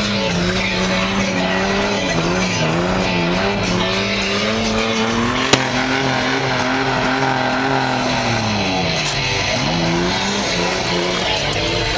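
Ford Ranger pickup's engine held at high revs while driven hard on dirt, heard from inside the cab. The pitch wavers up and down, then drops and climbs back again near the end.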